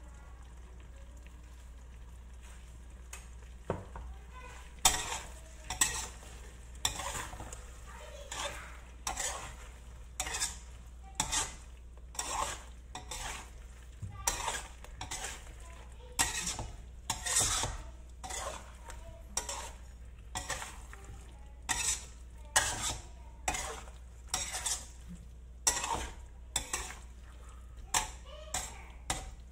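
A metal spatula stirring and scraping thick curry around a wok, in repeated strokes about once a second that begin about five seconds in, over a steady low hum.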